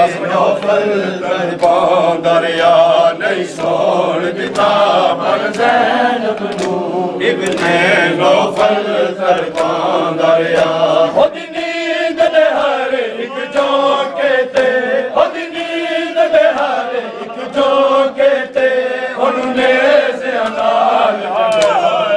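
A group of men chanting a noha, a Shia mourning lament, in unison. Regular slaps of hands beating on chests (matam) keep time, a little more than one beat a second.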